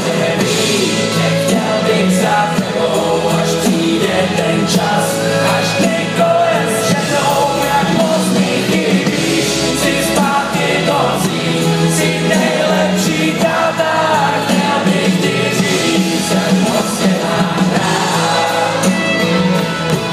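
Loud live band music with singing, played through the PA at a concert and heard from among the crowd.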